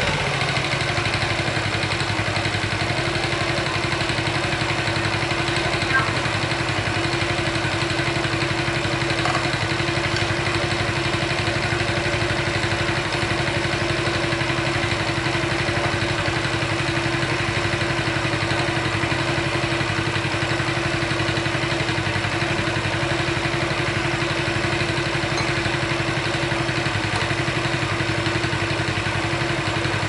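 Honda Chaly's small four-stroke single-cylinder engine idling steadily. A small rattling tick runs under the idle, which the owner suspects comes from the cylinder head or the cam chain.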